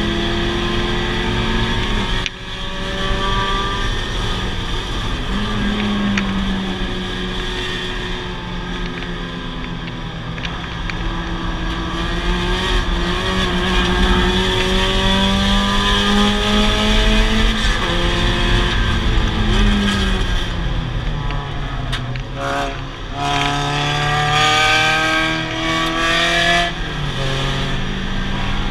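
Mazda Miata race car's four-cylinder engine heard from inside the cabin under hard acceleration on track, its pitch climbing through the gears. There is a quick break for a gear change a couple of seconds in, and a lift with downshifts about three quarters of the way through, before it pulls hard again.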